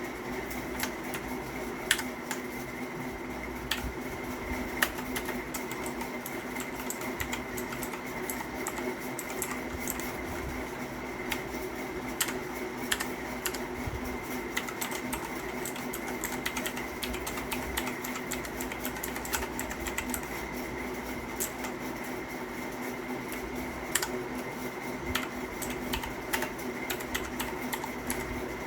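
Keys of a Havit KB498L mechanical keyboard with clicky blue switches being pressed, giving irregular clicks with a few louder ones, over a steady background hum.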